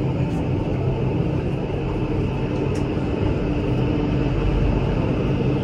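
Electric rack-railway railcar of the Pilatus cogwheel railway running on the climb: a steady rumble with a low hum from the drive and cog gear.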